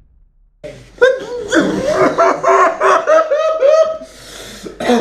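Loud laughter in quick, pitched ha-ha pulses, starting about half a second in, with a breathy intake near the end.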